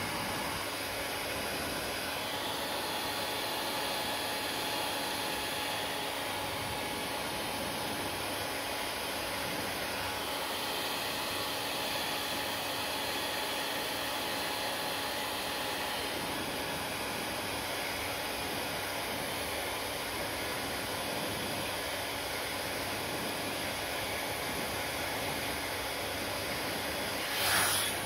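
Panasonic hand-held hair dryer blowing steadily, a rushing hiss with a faint steady whine in it. Just before the end it is briefly louder.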